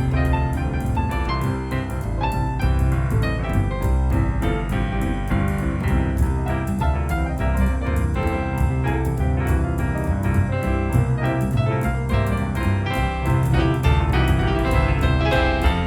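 Background music led by piano, with a steady beat.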